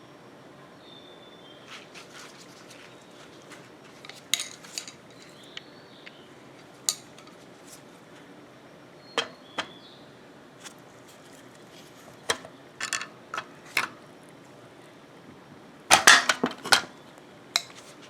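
Scattered clicks and clinks of a dishwasher rack and rack adjuster parts being handled and fitted, with a few brief squeaks and a quick cluster of louder knocks near the end.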